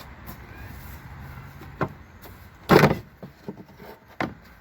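Plastic tail light housing being pulled off the back of a Dodge Journey by hand: a few light clicks and knocks, and one loud, short knock about three seconds in as the housing comes free.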